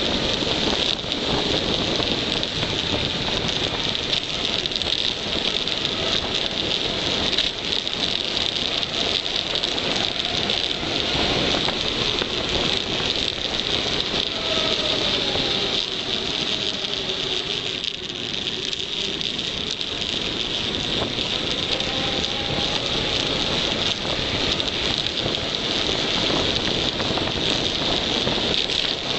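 Steady rush of wind over the microphone and tyre roar on tarmac from a KTM Tombstone mountain bike descending at high speed.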